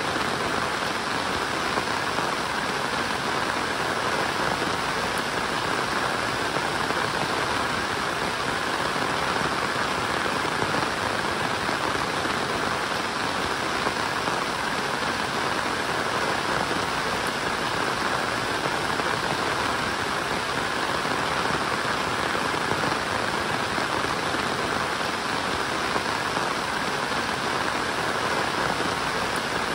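Steady rainfall: an even, unbroken hiss of rain falling on the ground and surfaces, with no letup.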